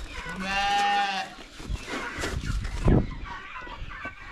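A sheep bleats once, a steady call lasting about a second. It is followed by rustling and a sharp knock about three seconds in.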